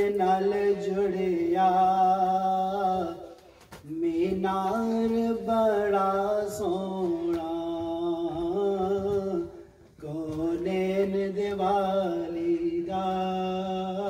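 A man reciting an Urdu naat, singing unaccompanied in three long, drawn-out melodic phrases with short breaks between them.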